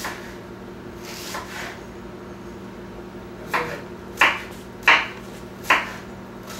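Serrated kitchen knife chopping an onion on a wooden cutting board: a couple of soft cuts early, then four sharp knocks on the board about two-thirds of a second apart in the second half.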